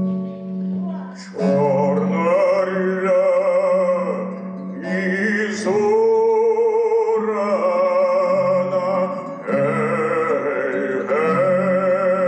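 A man sings an old Cossack folk song in a full voice with wide vibrato, accompanying himself on a plucked kobza whose low strings ring steadily beneath. The voice comes in about a second in and sings in long phrases with brief breaths between them.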